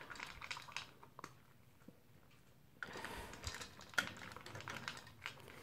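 A dog eating its food from a bowl: quick, faint crunching and clicking, with a quieter pause in the middle. About four seconds in there is a sharper click from the wire crate's door latch being worked.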